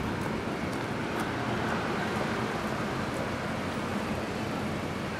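Steady city street traffic noise, an even wash of passing road vehicles.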